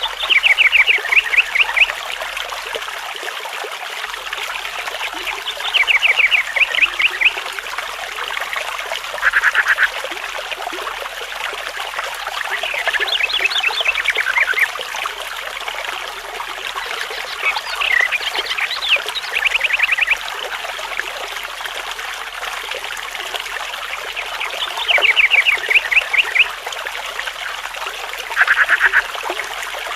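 A stream trickling steadily, with repeated animal calls over it: bursts of quick, high descending notes every few seconds and a short buzzy call twice.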